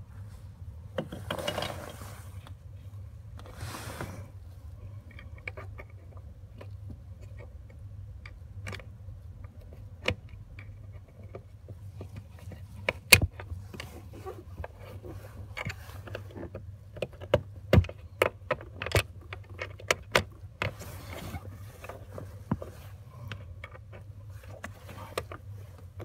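Plastic clicks and knocks as the bonnet release handle and cable are pushed into the car's footwell trim panel, with two bursts of rustling in the first few seconds and a run of sharp clicks through the middle, over a steady low hum.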